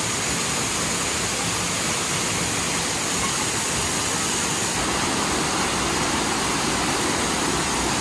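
Waterfall pouring off a rock ledge and splashing into its plunge pool: a steady, even rush of water, running strong.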